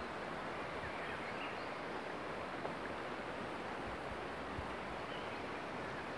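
Steady rush of river water running over shallow rapids, with a few short low thumps of wind on the microphone.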